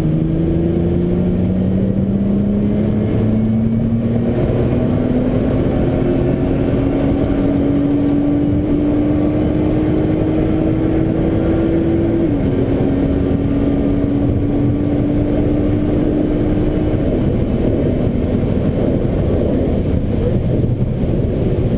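Nissan GT-R's twin-turbo V6 heard from inside the cabin, accelerating with its pitch climbing slowly, then dropping at an upshift a little past halfway and again about three-quarters through. Under it runs a steady rush of tyre and road noise on the wet track.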